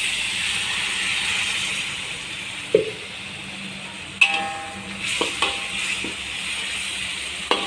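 Water poured into a wok of hot frying spice paste sizzles, the hiss dying down after two to three seconds. Then a metal spatula clicks and clinks against the wok a few times as the paste is stirred.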